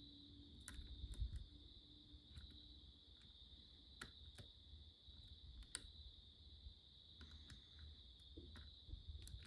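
Faint, scattered clicks of a hook pick working the spool pins of an ABUS 72/40 padlock under light tension, with a few sharper ticks among them.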